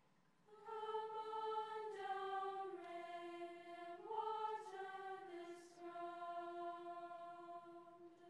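Treble choir of high school girls singing a slow, sustained phrase. The voices come in about half a second in and fade out just at the end.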